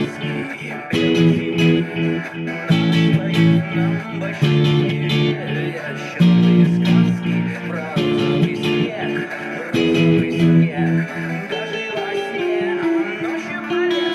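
Guitar music without vocals: strummed chords changing about every two seconds, with a higher melody line running over them.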